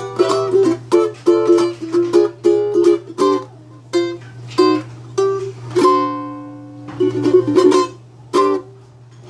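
Ukulele strummed in chords: a quick, rhythmic run of strums, then sparser strums with one chord left to ring out and fade, and a few last strums near the end. A faint steady low hum sits underneath.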